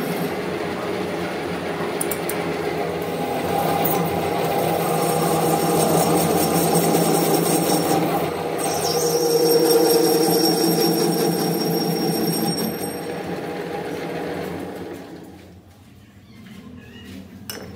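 Metalworking machinery running steadily in a workshop: a mechanical hum with a steady high whine over it, dropping away about three seconds before the end.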